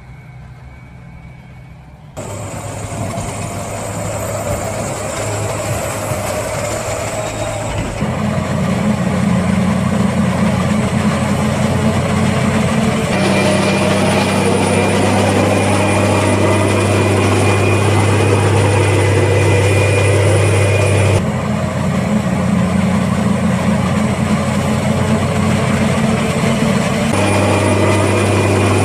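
John Deere 8800i forage harvester running steadily while chopping corn: a steady deep engine hum under a high whine and a haze of chopping noise. It is quiet for about the first two seconds, then comes in and grows louder in steps.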